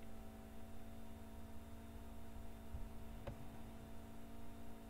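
Steady low electrical hum with a single sharp click a little past three seconds in.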